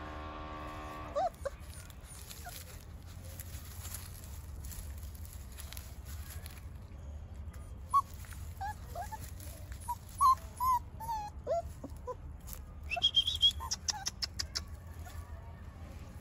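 Rajasthani shepherd dog puppies whimpering: a string of short, high whines and squeaks that start about halfway through and come thick and fast for several seconds before dying away.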